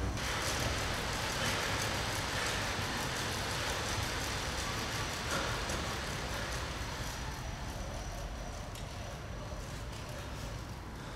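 Steady whirring and rushing of exercise machines (cross-trainer and exercise bike) being worked hard, easing off slightly in the second half.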